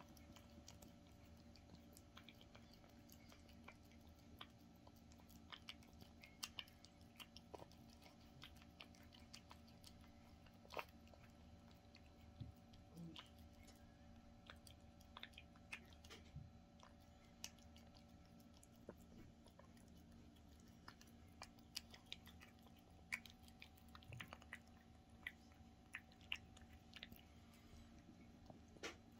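Cat eating wet pâté-style food from a stainless steel bowl: faint, irregular chewing and smacking clicks over a low steady hum.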